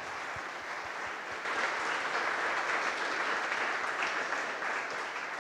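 Audience applauding, swelling over the first second and a half, then holding steady and easing slightly near the end.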